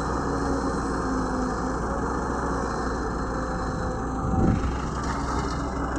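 Excavator's diesel engine running steadily, with a brief low swell in the sound about four and a half seconds in.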